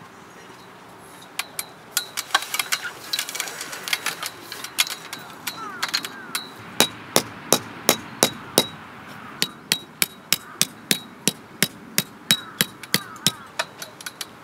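Hammer driving metal tent stakes into the ground: a run of sharp ringing strikes, about three a second, through the second half, after scattered strikes before it.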